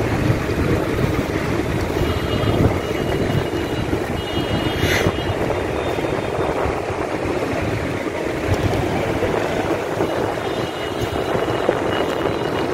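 Tractor engines running steadily as a convoy of tractors drives past, with a brief hiss about five seconds in.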